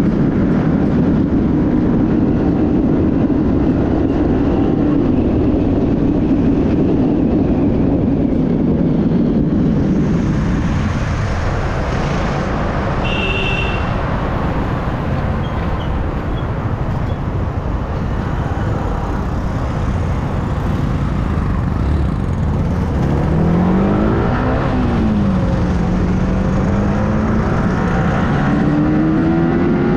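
Yamaha R15M's single-cylinder engine running under way, with a steady rush of wind. Its pitch rises and falls about 23 seconds in and climbs again near the end. A short high beep sounds about 13 seconds in.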